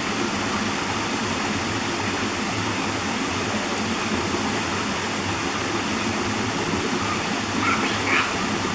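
Waterfall rushing steadily, with a brief call near the end.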